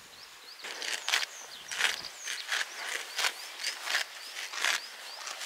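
Footsteps crunching on dry ground cover, a step about every half second, with small birds chirping faintly.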